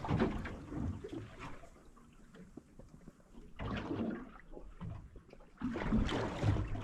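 Water sloshing and splashing in irregular swells, with a quieter lull in the middle.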